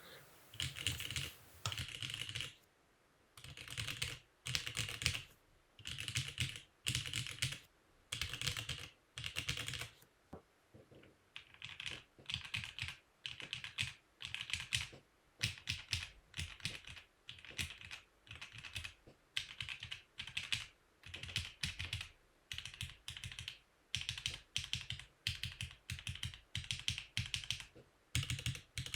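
Typing on a mechanical keyboard fitted with Omnitype 9009 PBT dye-sub keycaps, in bursts of rapid keystrokes broken by short pauses. The reviewer calls the sound PBT-typical: less defined than GMK ABS, more poppy and deeper in pitch.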